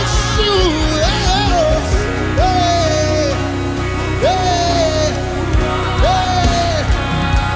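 Live gospel worship music: a band with steady bass and drums, and a voice singing long held notes that bend down at their ends, three times in a row.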